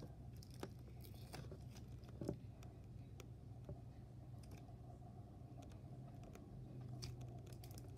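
Clear glitter slime being stretched and squeezed by hand: faint, scattered sticky clicks and pops over a low steady hum.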